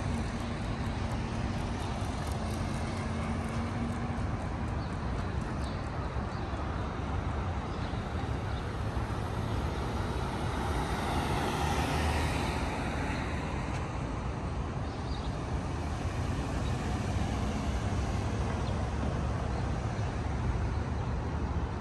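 Street traffic noise, with one vehicle passing by, loudest about halfway through.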